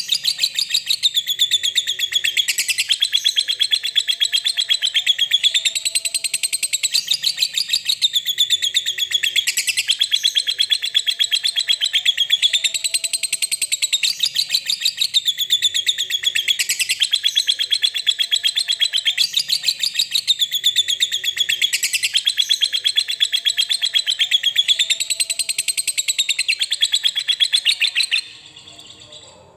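Fischer's lovebird giving its long 'ngekek' song: an unbroken, very rapid chattering trill whose pitch swells and dips about every two seconds. It cuts off abruptly about a second before the end.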